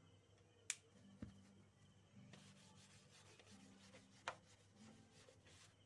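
A hand wiping marker writing off a small whiteboard: a faint rubbing that starts about two seconds in and goes on to the end. A sharp click and a soft thump come before it, and another sharp click partway through.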